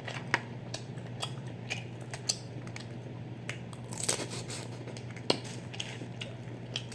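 Close-up eating sounds: boiled crawfish and shrimp shells cracked and peeled by hand, with wet smacking and chewing, heard as a string of short sharp clicks and crackles and a longer wet squelch about four seconds in, over a steady low hum.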